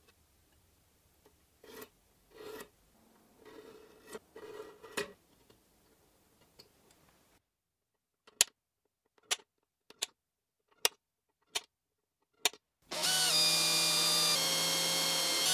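Pencil scratching marks along a steel ruler on an aluminium plate, then six sharp clicks spaced slightly under a second apart. Near the end a cordless drill starts and runs drilling into the aluminium plate with a steady high whine that steps in pitch once; this is the loudest part.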